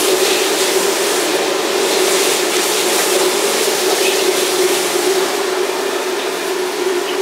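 Steady roar of a restaurant kitchen's high-flame gas wok burner, with a constant hum underneath.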